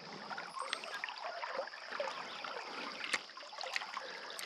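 Shallow creek water trickling and lapping, with small splashes and a sharp click about three seconds in.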